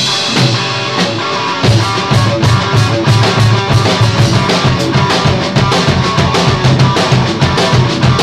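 Rock jam of electric guitar (a Strandberg with EMG pickups) and a drum kit: guitar riffing over busy drumming, with the drums growing denser about a second and a half in.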